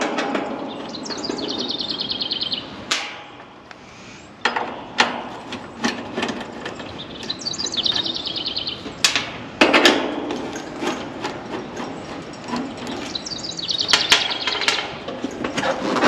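Sheet-metal screws being backed out of an AC condenser unit's service panel with a 5/16-inch driver: three spells of quick, even clicking, with sharp metal knocks between them.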